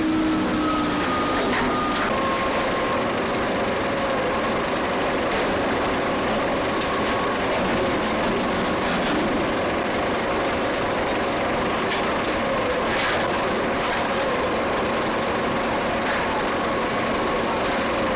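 Steady machinery drone and rushing noise aboard a ship under way, with faint steady humming tones and a few light clicks.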